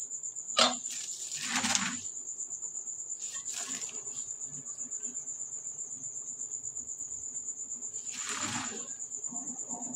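A cricket trilling steadily at a high pitch, with a few brief rustles of chopped greens being handled and mixed by hand in a metal pot. There is a short knock about half a second in, and the rustles come at about one to two seconds, around three and a half seconds, and around eight and a half seconds.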